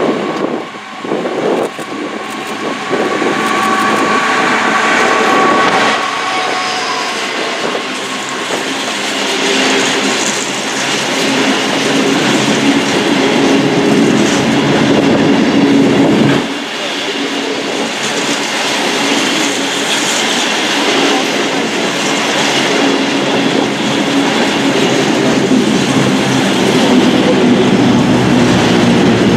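A freight train passing close by: a Class 66 diesel locomotive goes through, followed by a long rake of empty steel-carrying flat wagons rattling and clattering over the rail joints.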